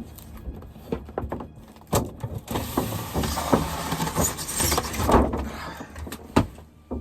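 Cardboard box and packaging being handled and pulled open: a few knocks, then about three seconds of scraping and rustling, and another knock near the end.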